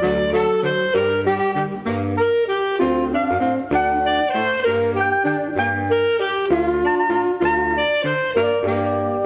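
Saxophone quartet of soprano, alto, tenor and baritone saxophones playing together: a melody over a steadily pulsing bass line of repeated low notes.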